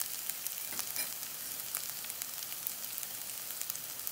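Onion, ginger and garlic sizzling in hot oil in a stainless steel pan, with scattered sharp crackles as freshly added mustard seeds heat in the oil.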